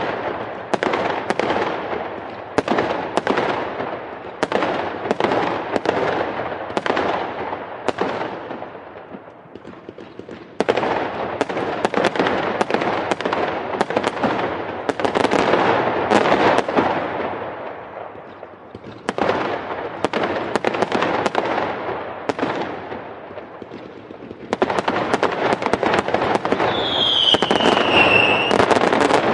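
Fireworks going off in rapid volleys of bangs and crackles that ease off briefly a few times before building again. Near the end a whistle falls in pitch over the bangs.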